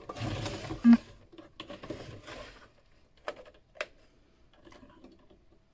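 A plastic Fisher-Price Play Family toy house being handled and turned around on a tabletop. A brushing scrape ends in a sharp knock about a second in, then two short clicks follow a little past the middle.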